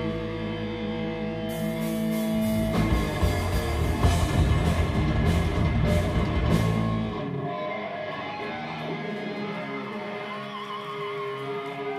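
Live band playing amplified electric guitars, bass and drums. Held chords give way to the full band with crashing cymbals, then the drums and low end drop out about seven seconds in, leaving guitar playing on.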